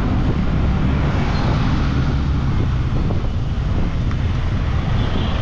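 Steady low rumble of a moving vehicle, with wind noise on the microphone.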